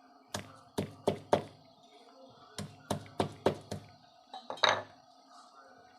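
Garlic being pounded, heard as sharp knocks in two quick runs of four and five strikes, followed about four and a half seconds in by a ringing metallic clink.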